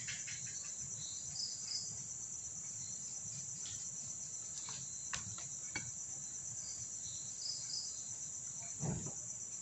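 Steady high-pitched insect chirring, with a few light clicks and a soft knock near the end.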